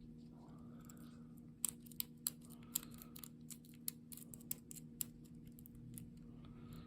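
Small sharp metallic clicks and ticks at an irregular pace as a lock pick, held against a tension wrench, probes the pin stack of a small lock, with several distinct clicks through the middle.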